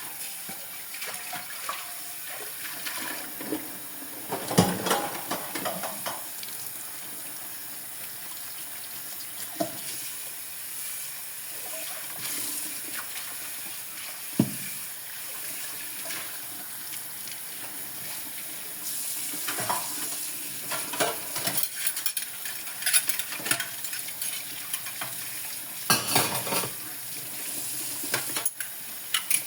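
Dishes being washed by hand at a sink under running water: a steady hiss of water, with the clink and clatter of dishes and utensils now and then, in busier bursts near the end.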